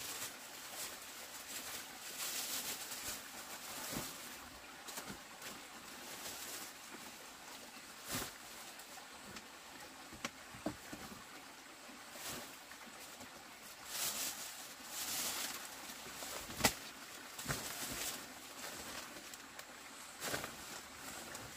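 Plastic bags rustling as they are handled and unpacked, with scattered sharp clicks and knocks of things being set down on a table. The sharpest knock comes about three-quarters of the way through.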